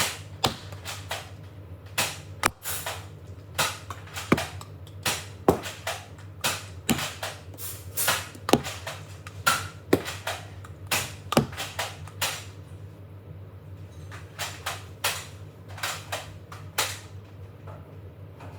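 Nerf Eaglepoint bolt-action dart blaster being worked and fired over and over: a string of sharp plastic clicks and pops from the bolt being racked and the trigger released. There is a short pause about two-thirds of the way through before the clicking resumes.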